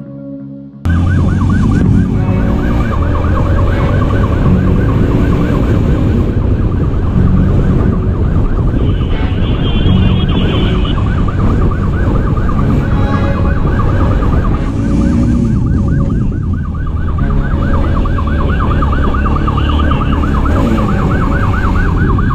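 Police motorcycle siren sounding a fast, continuous rising-and-falling yelp, over a low rumble of engine and wind from a motorcycle riding at speed. The siren cuts in about a second in.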